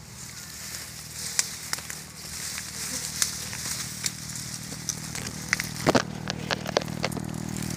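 Dry twigs and leaves crackling and snapping as brush is pushed aside, a scatter of sharp clicks that is busiest around six to seven seconds in. Under it a steady low buzz of a wild dwarf honeybee colony swarming on its comb, growing louder toward the end.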